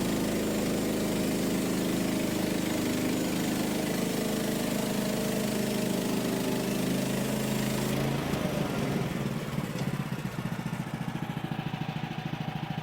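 Woodland Mills HM130 Max band sawmill's gas engine running fast while the blade saws through a log. About eight seconds in, the hiss of the cut drops away and the engine slows to a steady pulsing idle.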